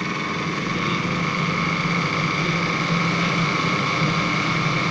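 Small DC cooling fans of a Peltier-module cooler running steadily: an even whir with a few constant tones over a hiss.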